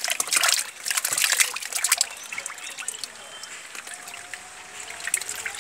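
Tank water splashing as a plastic basket scoops live fish out of a biofloc tank, with the fish thrashing in it. The splashing is heavy for about the first two seconds, then eases to quieter trickling and dripping.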